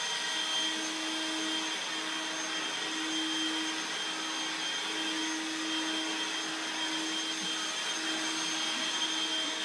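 Vacuum cleaner running steadily, a constant motor whine over a rushing airflow.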